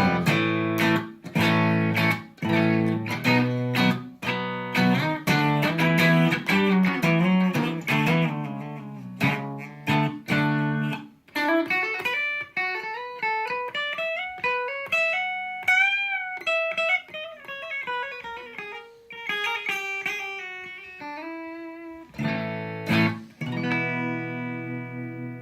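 Squier Stratocaster electric guitar played on its bridge pickup: chords for the first half, then a run of single notes climbing up the neck and coming back down, then chords again near the end.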